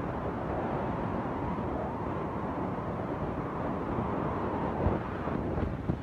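Wind buffeting the microphone: a steady, uneven low rumble. A short knock is heard just before five seconds in.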